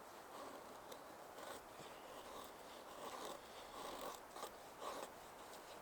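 Scandi-ground Cold Steel Finn Wolf folding knife shaving curls off a stick to make a feather stick: faint, repeated scraping strokes, about one a second.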